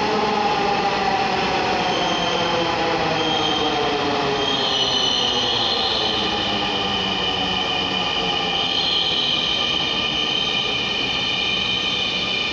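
Dhaka Metro Rail train running, its motor whine gliding slowly down in pitch as the train slows. A high, steady wheel squeal comes in about two seconds in and carries on through most of the stretch.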